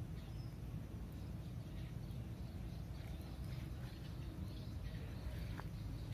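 Quiet outdoor background: a steady low rumble with faint, scattered bird-like chirps and a single light click near the end.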